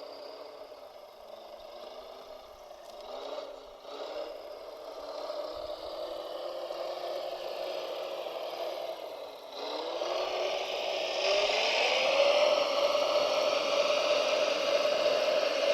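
Electric motor of a radio-controlled construction model whining, its pitch climbing about ten seconds in and then holding steady as it gets louder, with scraping and rattling.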